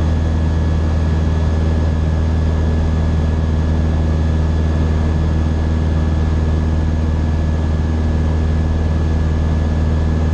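Light aircraft's engine and propeller droning steadily in level cruise, heard from inside the cockpit: a loud, even low hum that does not change.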